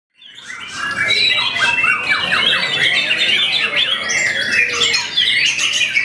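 White-rumped shama (murai batu) singing a fast, unbroken stream of varied whistles and rapid repeated notes. The song fades in over the first second.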